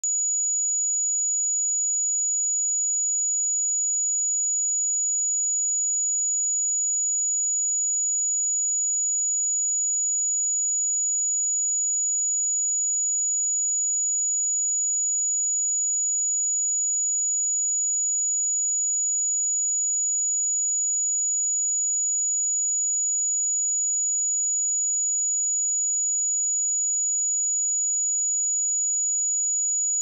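A pure 6868 Hz sine-wave test tone, a single steady high-pitched whistle held at constant level without a break.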